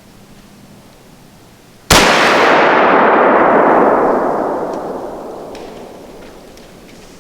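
A single muzzleloader rifle shot fired at a deer, followed by a long echo that rolls on and fades over about three seconds. The shot missed at under 60 yards, a sign that the scope was knocked off zero when the gun fell on it.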